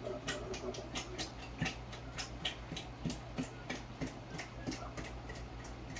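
Pots boiling on a gas stove, with irregular small ticks and bubble pops a few times a second over a steady low hum.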